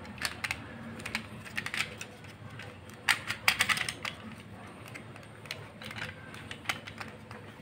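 Irregular light plastic clicks and rattles from a battery quartz clock movement being handled and turned in the hands, with a cluster of louder clicks about three seconds in.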